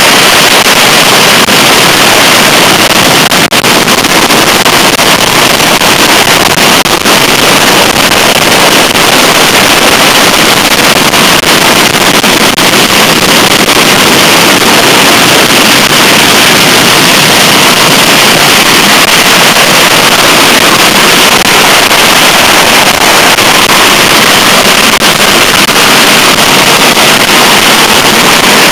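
A continuous barrage of bottle rockets fired from a beehive rocket rack: a dense hissing crackle with sharp cracks all through. It is loud enough to overload the microphone.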